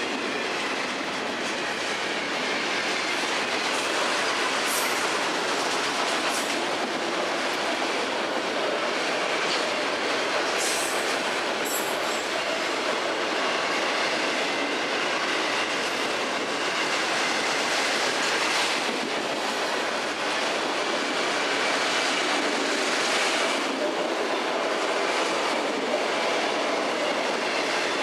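Freight train cars rolling past: a steady clatter of steel wheels on the rails with clickety-clack, and a few brief high wheel squeals near the middle.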